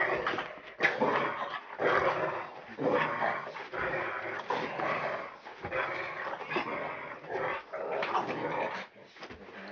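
Dogs growling in rough play, in repeated bursts about once a second.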